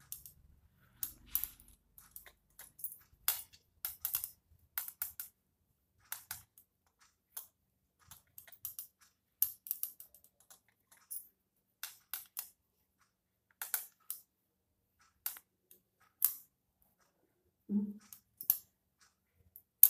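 Hand knitting with metal needles: light, irregular clicking and clinking, about one or two clicks a second, from the needles and the knitter's bangles.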